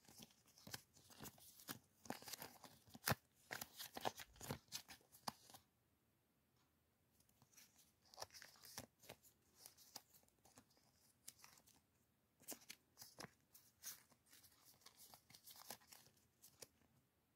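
Thin clear plastic crinkling and crackling as it is crumpled and squeezed in the hands. The crackles come in dense runs, with a short lull about six seconds in.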